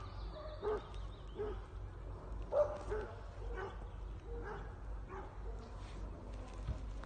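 American foxhound barking in a run of short barks, roughly one a second, the loudest a little over two and a half seconds in, growing fainter and sparser near the end. It is a hound's bay (skall) given at a bear.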